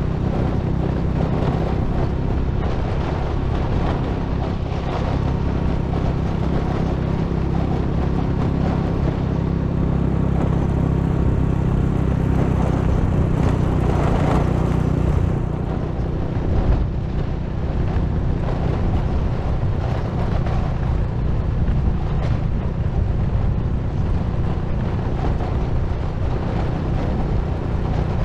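Engine of a small vehicle running at a steady speed, with wind rushing over the microphone as it rides along.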